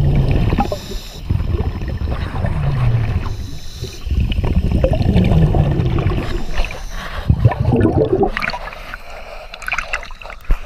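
Diver breathing underwater through a regulator: long bubbling exhalations with short hissing inhalations between them, roughly every two to three seconds. Near the end the breathing stops and there is lighter water splashing.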